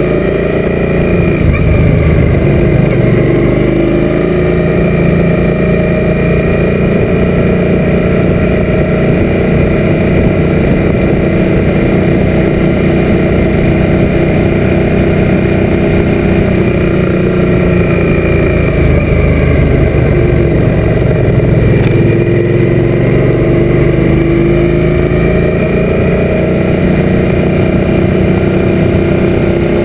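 Suzuki M800 V-twin motorcycle engine running while riding, its pitch rising and falling with the throttle, under heavy wind noise on the bike-mounted camera.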